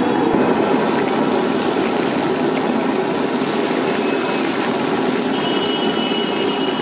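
Coated fish pieces deep-frying in a large iron kadai of hot oil, with a steady sizzle over constant street noise. A faint high beep comes in near the end.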